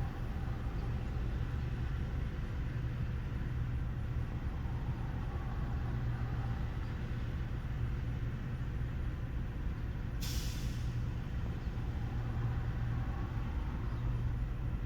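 Vehicle engine idling steadily, with one short hiss of air about ten seconds in, like a truck's air brake releasing.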